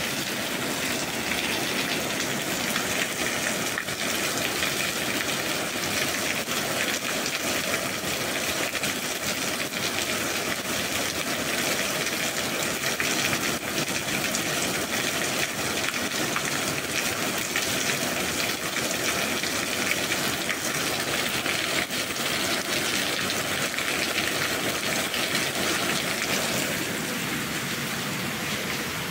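Steady rain, an even hiss of falling rain with scattered drops, easing slightly near the end.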